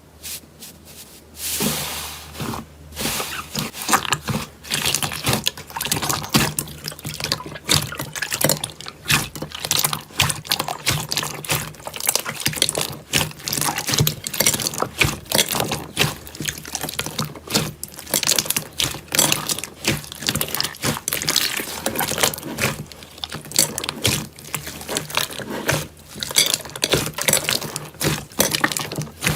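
Slime being squeezed and worked by hands, giving a dense, irregular run of wet squelches and small pops and clicks.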